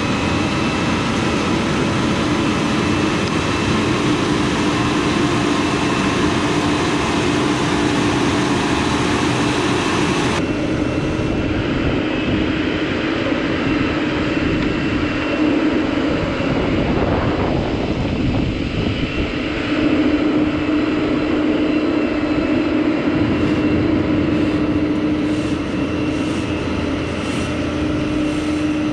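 Multirotor drone's motors and propellers humming steadily, a whine with several pitches stacked on one another. The pitch wavers for a few seconds past the middle, then settles again.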